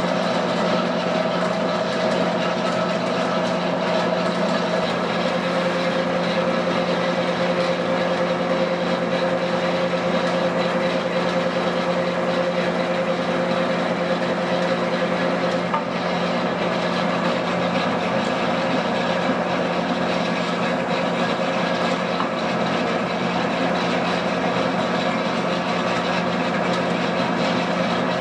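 DoAll C-1212A automatic metal-cutting bandsaw running, a steady mechanical hum with several held tones. One tone drops slightly in pitch about five seconds in, and there is a faint tick near the middle.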